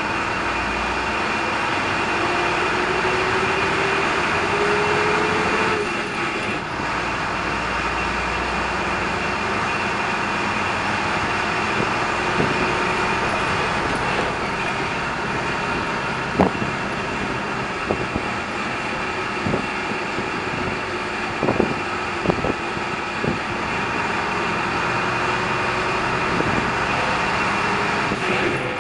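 DAF MB200 city bus under way, heard from inside the cabin: diesel engine and road noise, with a whine that rises slowly over the first six seconds and then breaks off. Past the middle come scattered sharp knocks and rattles from the body and fittings.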